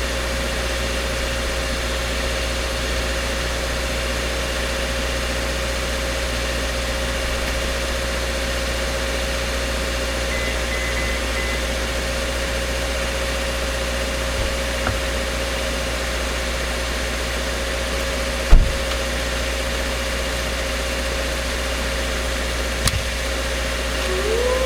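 A steady engine-like hum with a constant low rumble and a steady mid-pitched tone, broken by a sharp click about three quarters of the way through and a smaller one near the end.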